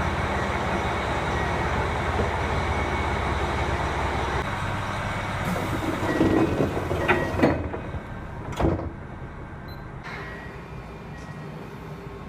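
Keikyu train's sliding doors closing: under a steady hum, a hiss of air comes in, then the doors clunk several times and shut with a sharp thud about eight and a half seconds in, after which it is quieter.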